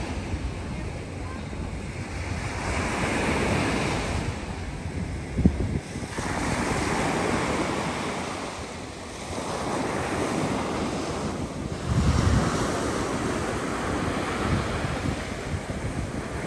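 Small surf breaking and washing up a sandy beach, swelling and fading every few seconds. Wind buffets the microphone, with a couple of brief low thumps about five and twelve seconds in.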